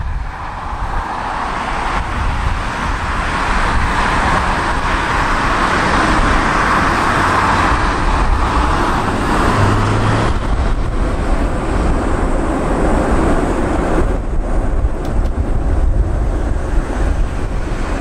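Boeing 747 freighter's jet engines roaring during the landing rollout just after touchdown, building over several seconds and easing off near the end. A low rumble of strong wind on the microphone runs underneath.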